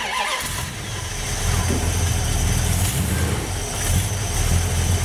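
Carbureted car engine, with a freshly replaced needle and seat in its Holley carburettor, starting up and then running at a steady idle.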